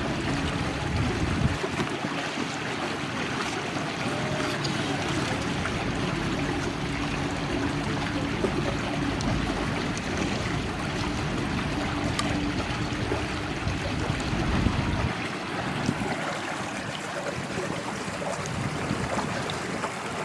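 Steady rushing noise of river water with a faint low hum and rumble that fall away about fifteen seconds in.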